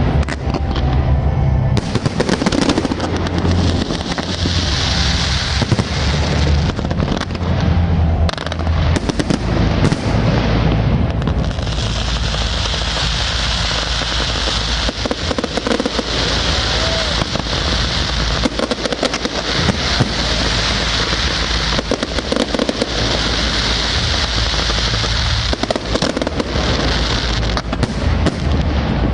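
Fireworks display: shells bursting in quick succession with low booms and sharp pops. From about twelve seconds in, a steady hiss and crackle of ground fountains and comets runs under the bursts.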